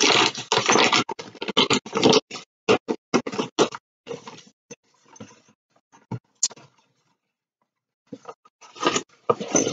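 A paper envelope being torn open and handled. There is a dense run of crackling tears and rustles for about the first four seconds, then scattered rustles and a few sharp clicks.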